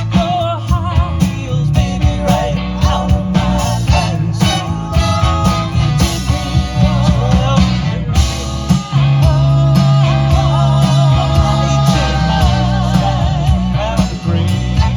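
Horn band playing an upbeat tune over drums and a strong bass line, with wavering melody lines on top.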